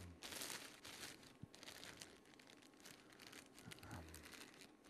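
Faint rustling and crackling in uneven bursts, over a faint steady hum.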